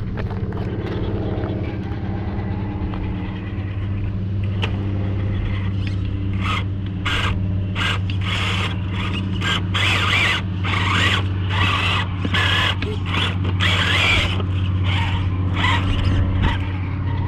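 Redcat Gen 8 RC rock crawler's electric drivetrain working in many short, irregular bursts of throttle as it climbs over rock, starting about six seconds in. A steady low hum runs underneath.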